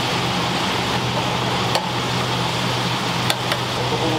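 Steady hum and fan-like rush of running kitchen machinery, with a few light clicks near the middle and twice near the end.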